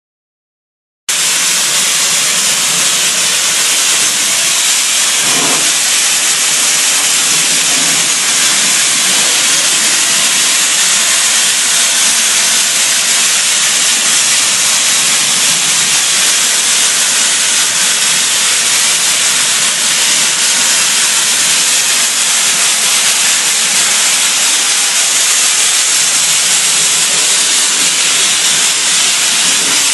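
Soda blaster spraying baking-soda media with compressed air: a loud, steady hiss that starts suddenly about a second in.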